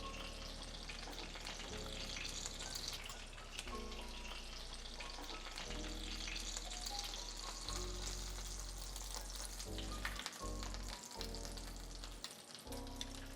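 Breaded chicken cutlet shallow-frying in olive oil in a pan: a steady sizzle with fine crackling. Background music with a stepping bass line plays under it.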